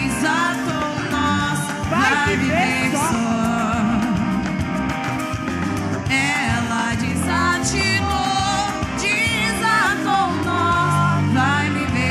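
Quadrilha junina song: singing over a steady band accompaniment.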